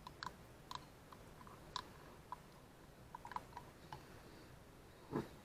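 Faint, irregular light clicks of a spoon against a cup while yeast is stirred into warm milk, with one louder knock near the end.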